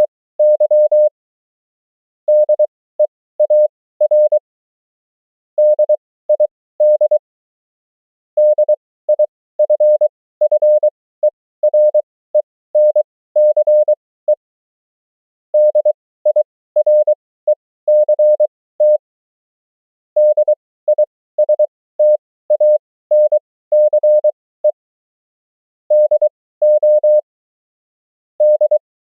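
Morse code (CW) sent as a single steady mid-pitched tone, keyed on and off in dots and dashes at 20 words per minute, with characters at 23 wpm. The words come in separate groups with pauses of about a second between them.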